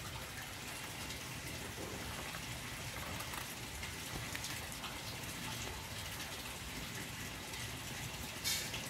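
Steady rushing noise like running water, with a few faint scattered clicks and a brief louder hiss near the end.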